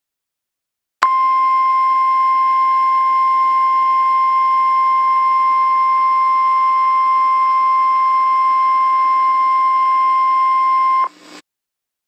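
Emergency Alert System attention tone: one steady, loud beep that starts about a second in, holds unchanged for about ten seconds, then cuts off abruptly.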